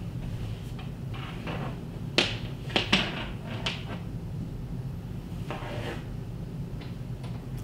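Handling noise from tightening the bottom screws of a TV wall-mount bracket: soft rustles and a cluster of about four sharp clicks and knocks between two and four seconds in, over a steady low hum.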